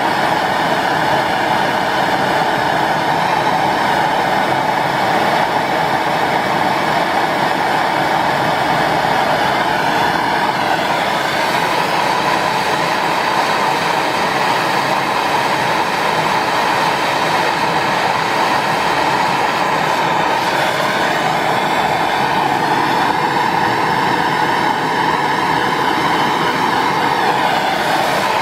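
MAP gas torch burning with a steady, unbroken flame noise, heating copper pipe to anneal it before swaging.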